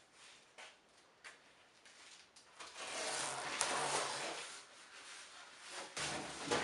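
Handling noises from a metal tool cabinet: a few light knocks, then a few seconds of scraping and rustling, and a sharp knock near the end.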